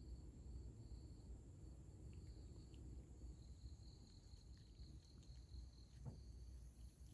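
Faint chirping of night insects, a steady pulsing high trill, over a low background rumble; a couple of faint clicks come from the cat crunching dry kibble.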